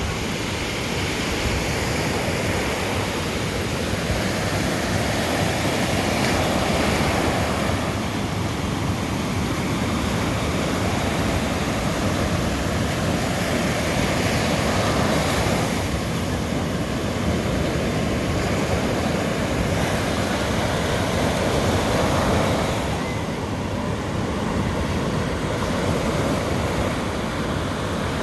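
Sea surf breaking on a sandy beach, a steady wash of waves that swells and eases every several seconds.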